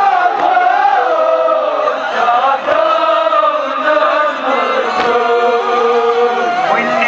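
Men chanting a Kashmiri noha, a Shia mourning lament. A lead voice sings into a microphone and other men's voices join in a slow melody of long held notes.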